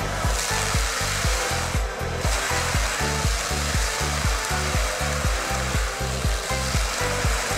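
Tractor-mounted forestry mulcher grinding a tree stump: a steady rushing, grinding noise that comes in just after the start. Under it runs background music with a steady bass beat.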